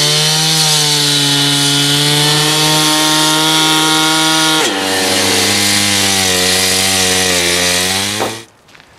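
Two-stroke gas cut-off saw running at full speed, its blade cutting stone with a bright hiss over the engine note. About halfway through, the engine pitch drops suddenly and then holds; the sound cuts off abruptly near the end.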